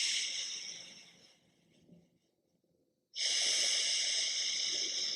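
Slow, drawn-out breathing through one nostril during alternate nostril breathing: a breath tails off about a second in, then after a pause of about two seconds another long breath starts abruptly.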